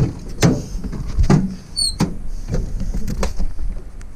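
Ambulance patient-compartment side door being unlatched and pulled open: a run of sharp clicks and knocks from the latch, handle and door, with a short high squeak about two seconds in.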